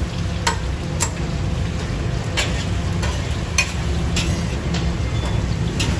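Metal tongs clinking against stainless steel bowls and strainers as food is picked out: about half a dozen sharp, irregular clinks over a steady low rumble.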